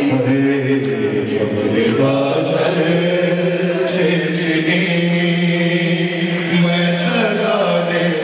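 A man chanting a noha, a Shia mourning lament, in long drawn-out notes, one held for about five seconds.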